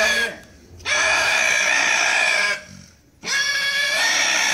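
Wild boar squealing loudly in long, high-pitched cries of nearly two seconds each, with short pauses between, as it is held down and stuck in the throat for slaughter.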